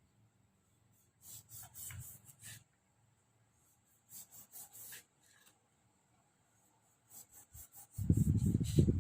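Limes being worked by hand on a wooden surface: several short rubbing, scraping strokes in groups, then a run of louder, heavier knocks near the end.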